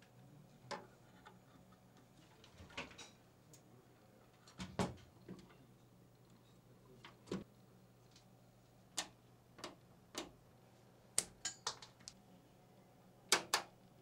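Plastic case fan and PC case parts clicking and tapping as a case fan is handled and fitted into a PC case: about a dozen sharp separate clicks, with a quick pair near the end.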